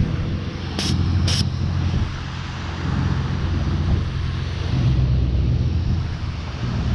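Low steady rumble of a motor vehicle's engine with a hum that swells and fades, and two sharp clicks about a second in.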